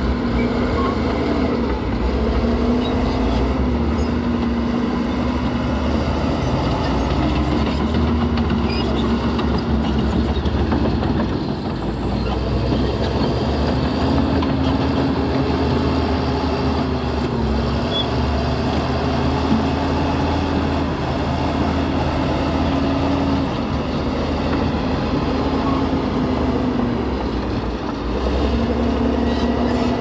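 Heavy earthmoving machine's diesel engine running under load, its revs rising and falling. A high thin whine sweeps up and down over it. The revs drop briefly about twelve seconds in and again near the end.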